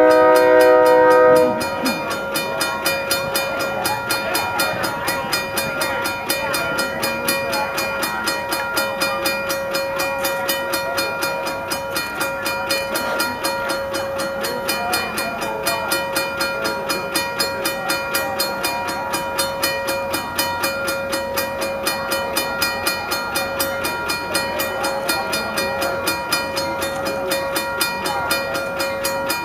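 A train horn sounds a chord that cuts off about a second and a half in. Then a grade-crossing warning bell rings on in steady, evenly repeated strokes as the crossing signals activate for an approaching train.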